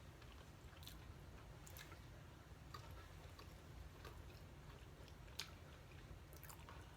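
Faint chewing of a peanut butter, strawberry and chocolate cookie sandwich: soft mouth clicks scattered about a second apart over a low, steady background hum.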